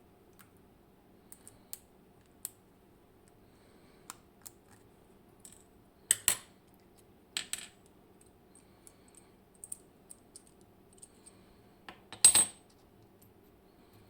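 Small metal parts of a Clavis 10 dimple lock clicking and clinking on a hard surface as the lock is taken apart. There are scattered light ticks, with louder clatters about six and seven and a half seconds in, and the loudest about twelve seconds in.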